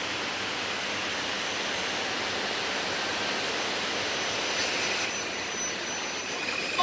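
Permanent-magnet gearless elevator traction machine and its drive during motor auto-tuning: a steady hiss with a faint thin high-pitched whine through the middle, and a brief louder knock right at the end.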